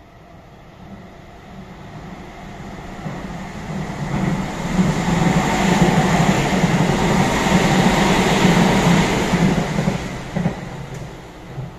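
Nankai 50000 series Rapi:t β limited express electric train passing through a station at speed. Its wheel and rail noise builds up as it approaches, is loudest for several seconds as the cars go by, and fades near the end.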